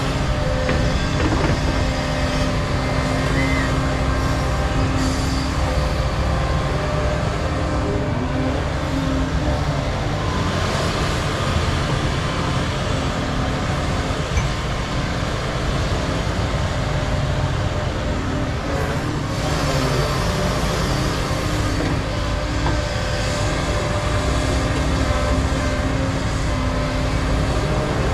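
Cat 335 and Volvo hydraulic excavators running while digging and swinging loads of topsoil: a steady diesel engine drone with a constant hum.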